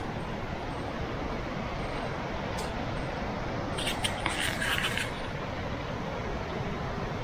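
Steady rushing of a flowing river, with a short rustle and crackle about four seconds in.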